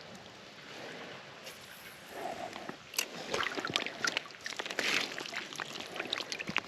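Water sloshing and splashing at the surface, starting low and turning into many irregular sharp splashes from about two seconds in.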